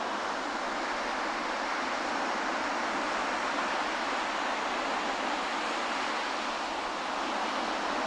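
Small ocean waves breaking and washing up a sandy beach: a steady rush of surf with no single crash standing out.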